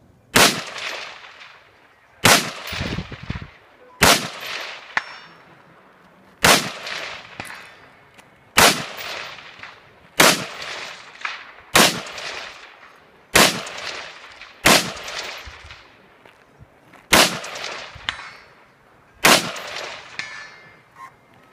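Rifle shots at a steady, unhurried pace, about eleven in all, one every one and a half to two and a half seconds, each sharp crack ringing on in a long echo.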